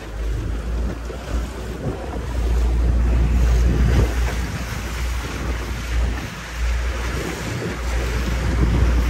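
Wind buffeting the microphone on a moving motorboat, a heavy uneven rumble over the rush of water along the hull.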